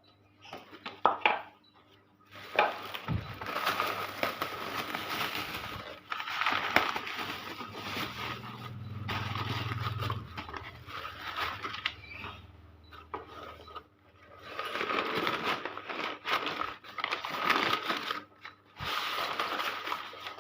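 Rustling and scraping from handling a plastic motorcycle fender and its packaging, in several stretches of a few seconds each, with a few knocks about a second in.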